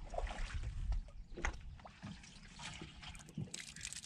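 Water trickling and pouring out of an upended plastic kayak held overhead to drain its hull, with a few short light knocks.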